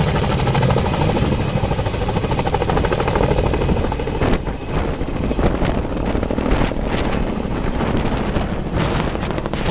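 Tandem-rotor firefighting helicopter lifting off with a load on a long line, its twin rotors beating rapidly and loudly. From about four seconds in, gusts of wind buffet the microphone.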